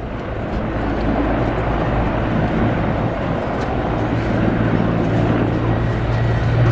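Mil Mi-14PŁ twin-turboshaft helicopter flying past, a steady rotor and turbine drone that grows louder as it draws nearer, with a low hum strengthening in the second half.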